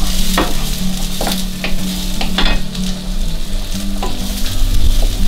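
Onions stir-frying in a frying pan: a steady sizzle, with a wooden spoon scraping and stirring through them in several strokes.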